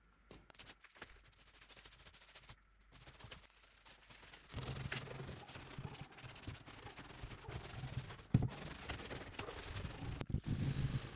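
A cloth rag rubbing back and forth over the old wooden chest's lid as a finish is wiped on, in irregular scrubbing strokes. Before it, for the first few seconds, there are only scattered light clicks and taps.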